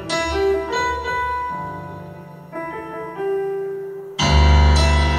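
Solo piano on a stage keyboard playing slow, held chords in a rock song's piano introduction. About four seconds in, a loud, deep chord is struck.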